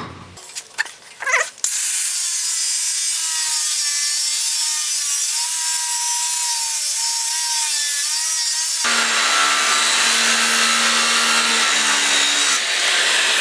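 Angle grinder with an abrasive cutoff wheel cutting through the end of a steel drill-rod bar: a few knocks, then a loud, steady hissing whine from about two seconds in, which drops to a lower, harsher tone about nine seconds in.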